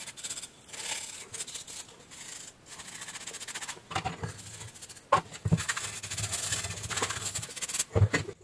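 Bristles of a paintbrush scrubbing dust off a circuit board, a steady hiss. A few knocks about four, five and eight seconds in as boards and parts are set down on the workbench.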